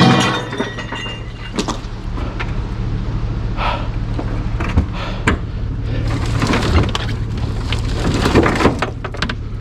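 Pieces of scrap steel being thrown onto a pile: one loud ringing metal clang at the start, then scattered clanks and scrapes of metal on metal. A steady low hum runs underneath.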